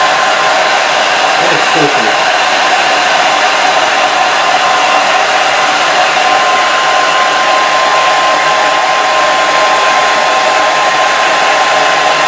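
Scarlett hand-held hair dryer running steadily: an even blowing rush with a constant high whine from its motor.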